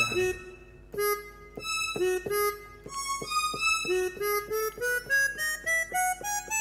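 Yamaha PSR-S970 keyboard's harmonica voice playing single notes: a short phrase of separate notes, then a run climbing steadily up the scale over the last couple of seconds.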